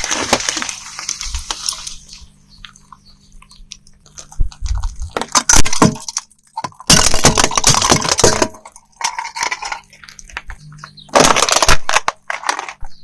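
Objects being crushed under a car tyre: several separate bouts of cracking and breaking crunches, with a low steady hum underneath.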